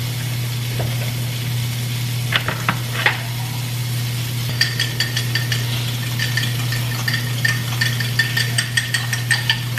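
A fork beats eggs in a drinking glass: a rapid run of ringing clinks, about four a second, starting about halfway in. Underneath runs the steady sizzle of sausages frying in grease, along with a low hum, and a few sharp clicks come shortly before the whisking.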